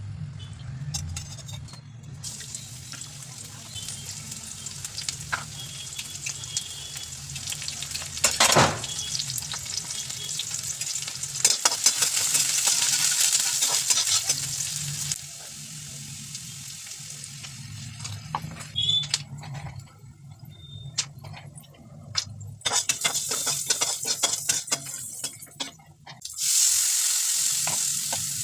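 Food frying in hot oil in a pan for poha, sizzling while a spoon stirs and clicks against the pan, with an occasional sharper knock. The sizzle swells loud twice, about halfway through and near the end, over a steady low hum.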